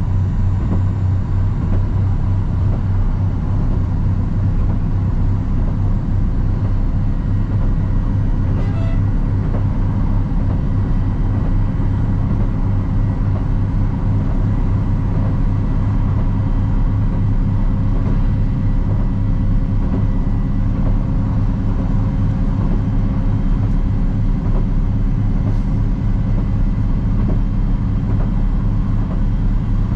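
Diesel railcar running steadily along the line, heard from the cab: a constant low engine drone with rail noise and a few steady hum tones above it.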